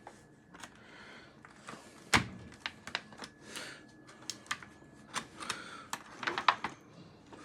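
Kitchen clatter: dishes and utensils clicking and knocking, with one louder thunk about two seconds in.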